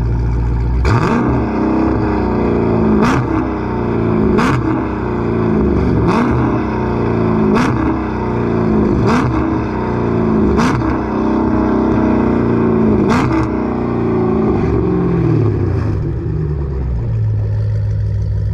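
Dodge Charger Scat Pack's 392 HEMI V8 through a full catback exhaust, revved from idle in about eight quick throttle blips. Each blip rises and falls in pitch, and the engine drops back to a steady idle near the end.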